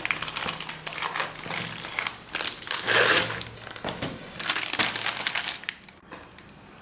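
Parcel packaging crinkling and rustling as it is handled and unwrapped, in bursts, with a quieter spell near the end.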